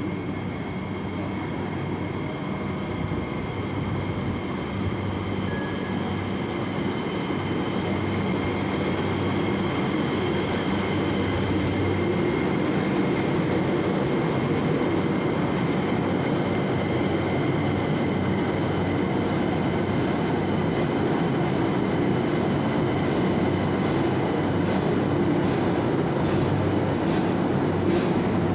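CAF metro train arriving at an underground station: a steady rumble of wheels on rails with a few thin, steady high tones over it, growing louder as the cars run along the platform. Rail-joint clicks come in near the end.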